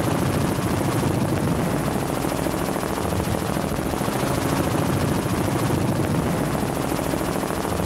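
Small two-bladed helicopter flying overhead: a steady, rapid rotor chop over the drone of its engine.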